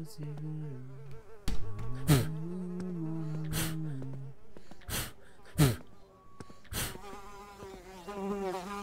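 A flying insect buzzing in a low drone that keeps shifting in pitch, broken by several sharp snaps.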